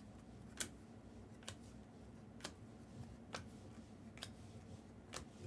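Faint, sharp clicks evenly spaced about once a second, over quiet room tone.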